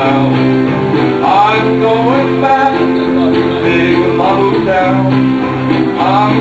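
Live country music: an acoustic guitar strumming steadily under a melody line whose notes bend up and down.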